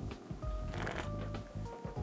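Background music with held notes and a bass line, with a brief rustling noise about a second in.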